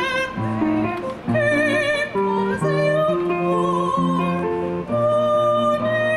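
Female opera singer singing long held notes with a wide vibrato, over an instrumental accompaniment of lower sustained notes that change every second or so.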